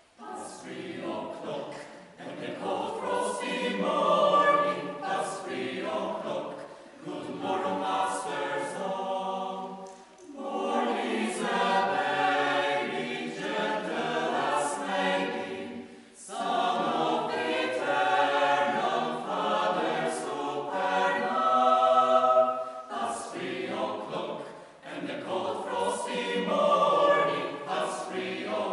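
Mixed choir of men's and women's voices singing a cappella, starting a piece from silence and going on in phrases with short breaks about ten and sixteen seconds in.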